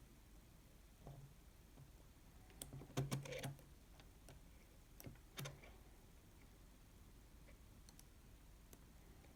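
Faint clicks and taps of a disc-detainer pick working the rotating discs inside an Abloy Protec padlock: one click about a second in, a quick cluster of clicks around three seconds, and two more a couple of seconds later.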